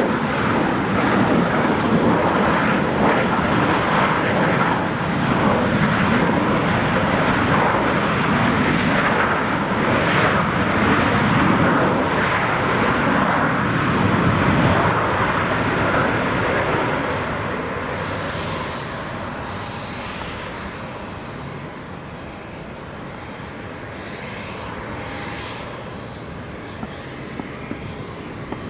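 Jet engines of a Jet2 Boeing 737 running loud on the runway, a heavy rushing roar that eases off and fades away from a little past halfway.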